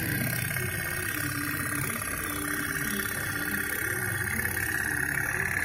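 Three candle-heated tin pop-pop steamboats running on water, a fast, steady putt-putting.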